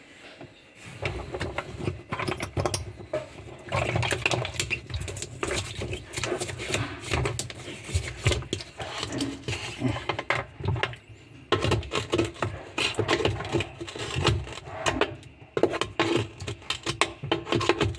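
Rapid, irregular clattering and knocking over a low steady hum, starting about a second in.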